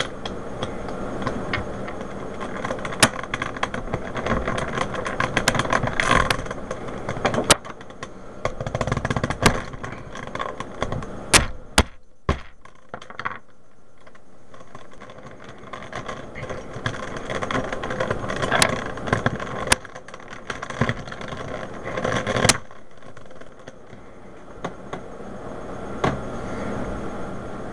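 Plastic Rubik's Cube pieces clicking and rattling as they are pressed and slid back into a partly rebuilt older-model cube, with many sharp clicks over steady handling noise and a short lull about twelve seconds in.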